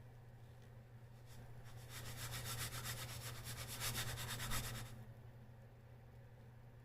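Rapid, even rubbing or scraping strokes for about three seconds, starting near two seconds in, over a steady low hum.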